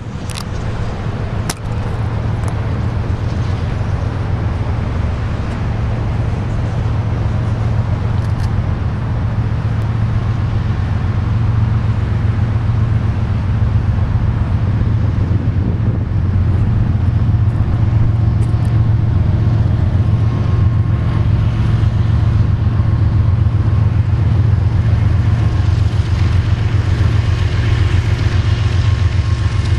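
Diesel locomotives of a Union Pacific gravel train running with a steady low rumble that grows gradually louder.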